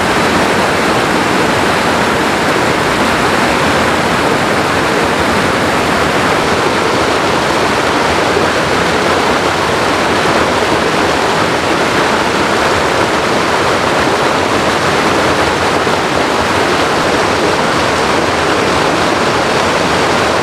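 Loud, steady rush of a rocky creek pouring over a small cascade into a pool, with white water churning over the boulders.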